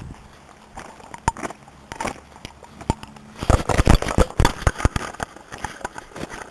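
Handling noise from a camcorder being moved around by hand: irregular knocks, clicks and rubbing on the camera body and microphone, densest and loudest about halfway through.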